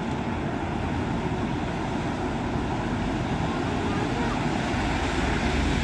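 Trucks and a van driving through shallow floodwater on a road: a steady rumble and rush of engines and water. The low rumble swells near the end, and faint voices sit under it.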